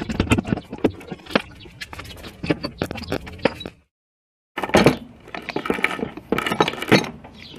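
Irregular metal clinks, knocks and scrapes as the aluminium intake manifold and throttle body are handled and lifted off an H22 engine, broken by a brief silent gap about halfway.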